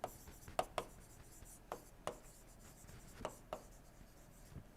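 Faint writing: short, irregular scratches of a pen on a writing surface, a few strokes a second.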